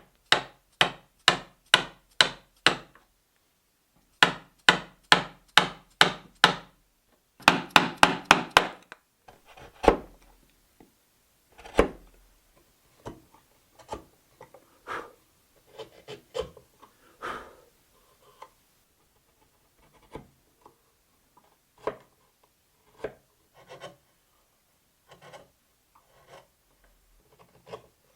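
A hand tool working wood in quick, even strokes, about three a second, in three runs over the first nine seconds, then scattered lighter taps and scrapes on the wood.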